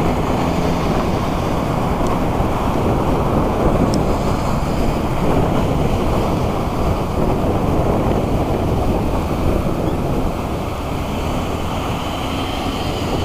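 Wind rumbling on the microphone over the steady noise of road traffic passing close by, easing off a little near the end.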